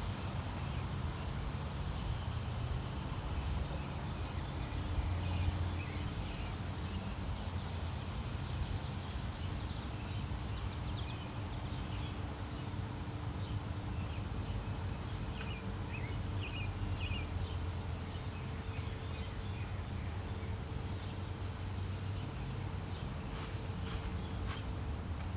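Outdoor background sound: a steady low hum with a few faint bird chirps scattered through it.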